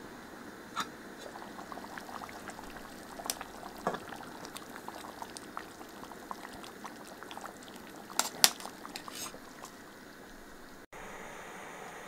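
Chicken tomato stew simmering in an aluminium camping pot, bubbling with many small pops, while a utensil stirs it and clinks against the pot's metal sides. The loudest clinks come in a quick cluster about eight seconds in.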